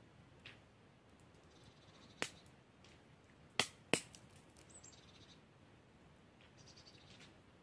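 Small wood campfire crackling, with a few sharp pops, the two loudest close together about halfway through. Faint high chirps repeat in the background every couple of seconds.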